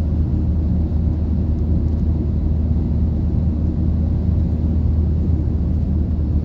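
Steady low rumble of road and engine noise heard from inside a moving car's cabin, unchanging throughout.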